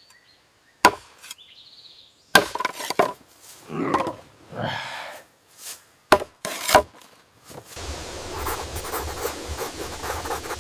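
A few separate sharp knocks mixed with short scraping, swishing sounds, then a steady hiss from about eight seconds in.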